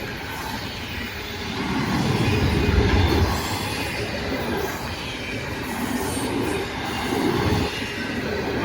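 Norfolk Southern intermodal freight train's cars rolling past on the rails, a steady rumble that swells louder about two to three seconds in and again near seven and a half seconds.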